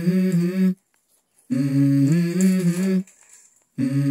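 A voice humming a slow, unaccompanied melody in held notes, in short phrases with brief pauses between them.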